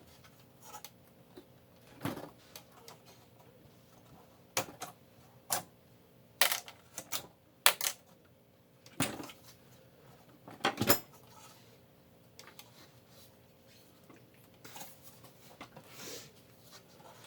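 Scattered clicks, clacks and knocks of metal server parts being handled and pried at during disassembly, about a dozen at irregular intervals, the loudest near the middle.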